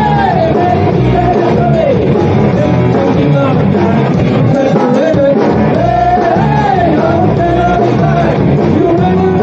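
Rock song with a singer's voice over a full band.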